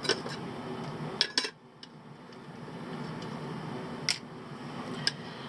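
Scattered light clicks and clinks of hand tools and small parts being handled during the teardown of a multimeter, about half a dozen over a few seconds, with the loudest pair a little over a second in.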